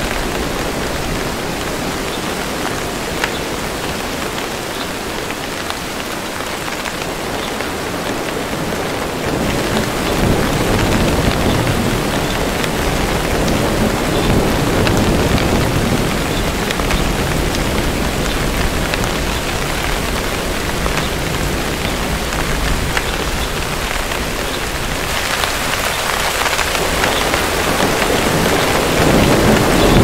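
Steady rain falling, with low rumbles of distant thunder swelling in about ten seconds in and again near the end.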